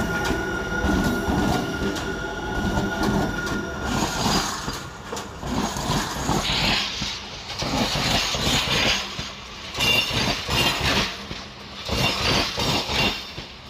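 Freight train wheels rolling past right beside the rail, steel wheels clacking and knocking over the track in quick succession, with a thin steady squeal during the first few seconds.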